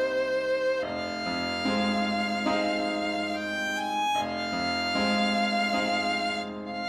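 Slow instrumental background music: a melody of long held notes, some with vibrato, moving to a new note about once a second.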